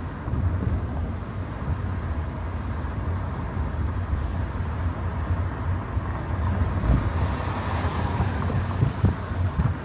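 Car driving on city streets: a steady low rumble of engine and tyres on the road, with a swell of hiss about seven seconds in and a few short low thumps near the end.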